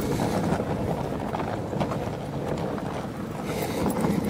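Steady low wind rumble and handling noise on a handheld camera's microphone while it is carried along a road.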